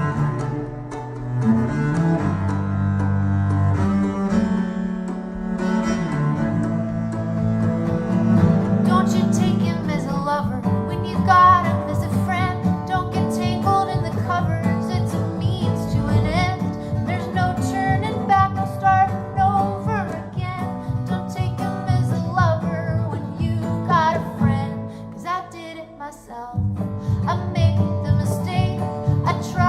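Music played through a Klipsch RSB-11 sound bar: deep bowed strings holding low notes, joined about nine seconds in by a busier, wavering melody line, with a brief drop near the end.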